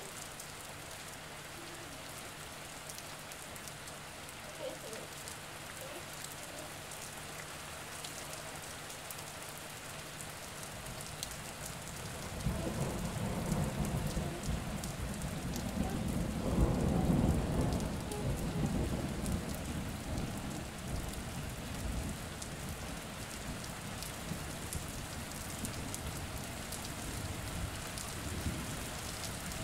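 Steady hiss of moving water, like an aquarium filter or pump, with a faint steady hum for the first ten seconds or so. A louder low rumble swells from about twelve seconds in and fades by about twenty.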